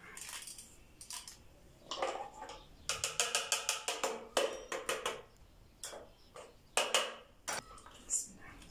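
Plastic food processor bowl clicking and knocking as it is lifted off its base and handled, with a quick run of sharp taps about three seconds in. A spatula then knocks against the bowl while scraping thick tahini out.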